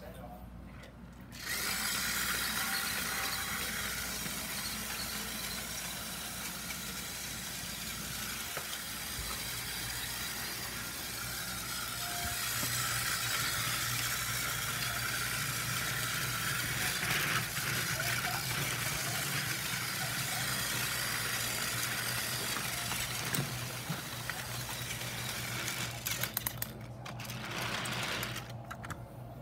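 A motorized toy train engine's small geared motor whirring steadily. It switches on about a second and a half in and stops near the end, followed by a few light clicks.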